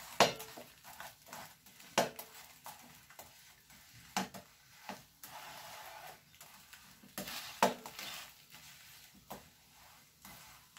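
Metal slotted spatula clinking and scraping against a frying pan while working a chips mayai (fries-and-egg omelette), with a faint sizzle of frying underneath. The sharpest clinks come about a quarter second and two seconds in, with several more scattered through.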